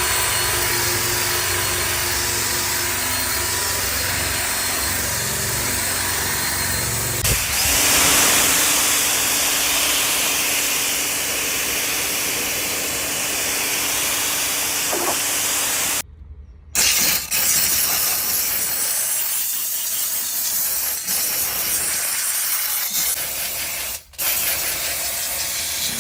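A detailing cleaning machine's motor running with a steady hiss and a low hum, in segments broken by abrupt cuts about two-thirds of the way in and again near the end.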